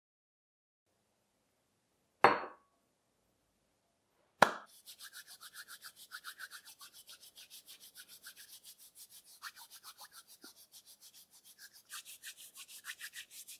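Two loud sharp hits about two seconds apart, then a person's dry palms rubbing briskly together in a fast, even rhythm of strokes.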